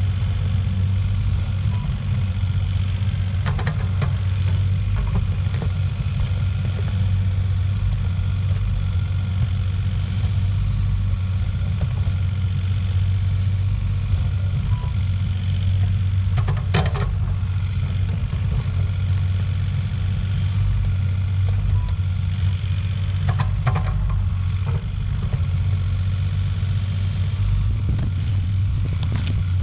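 Diesel engine of compact earthmoving machinery running steadily with a low, even rumble, with a few brief knocks or clanks about halfway through and again a few seconds later.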